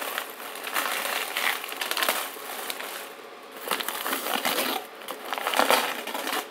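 The wrapping around a brick of firecracker packs crinkling and crumpling as it is handled and pulled open by hand, in several irregular bursts.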